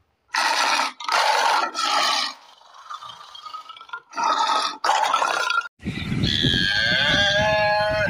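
White tiger snarling in five short, harsh bursts. Then a cow gives one long moo of about two seconds over steady wind noise.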